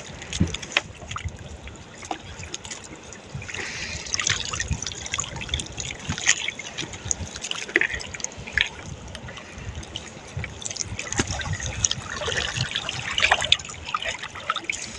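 Water trickling and dripping, with many small irregular splashes and knocks.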